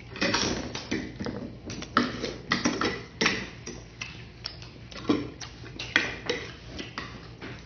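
A person eating bopis: chewing and lip smacks in an irregular run of short, sharp clicks, with a spoon clinking and scraping on a plate and bowl.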